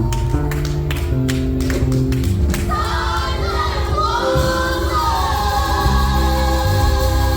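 Gospel worship music: singing voices over sustained chords and bass, with a steady run of percussion hits in the first two and a half seconds.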